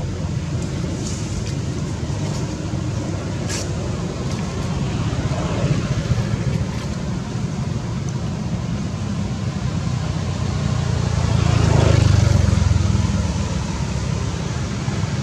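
Steady low rumble of road traffic, with a motor vehicle passing that grows louder, peaks about three-quarters of the way through, then fades.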